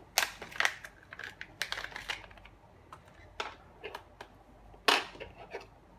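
Irregular plastic clicks and taps, about half a dozen, from bristle strips being handled and fitted into the channels of a brush end cap.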